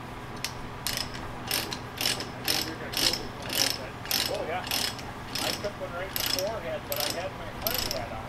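Ratchet chain load binder being cranked to tighten a tie-down chain, its pawl clicking about twice a second.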